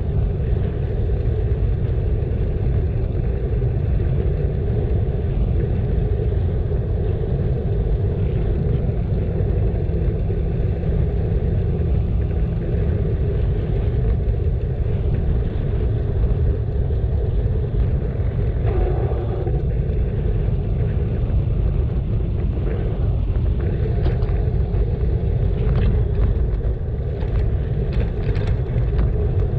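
Steady low rumble of riding a bicycle, wind and road noise, with a few light clicks near the end.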